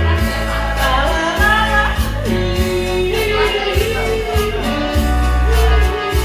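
Music: a song with a singing voice over guitar and a steady bass.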